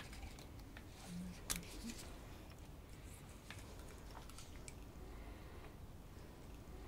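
Quiet room with a few faint, scattered clicks and light handling noise as gloved hands work with medication supplies at a bedside table; the sharpest click comes about a second and a half in.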